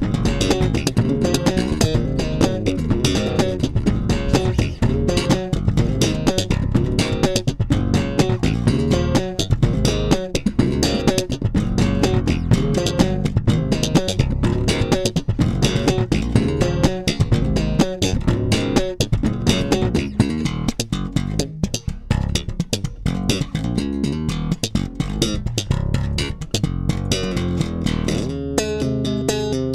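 Electric bass guitar played fingerstyle: a busy groove of many quick notes. Near the end the run stops and a few held notes ring.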